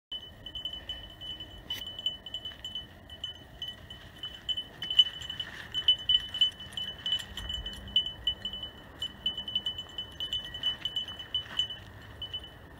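A small bell tinkling in quick, irregular jingles throughout, with faint scattered clicks.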